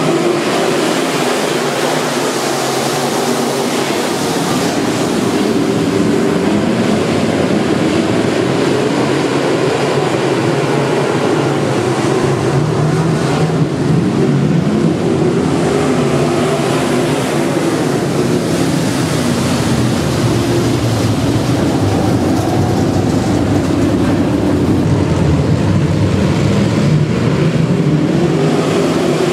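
A field of dirt-track modified race cars with V8 engines, running together on a dirt oval. It is a loud, steady blend of many engines whose pitch rises and falls as cars throttle up and lift.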